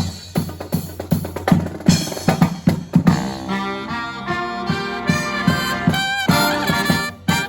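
Marching band playing: a drum cadence of evenly spaced strikes, with the brass section coming in on held chords about three seconds in.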